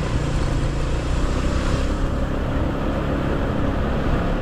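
Motorcycle engine running steadily, with no change in pitch or level.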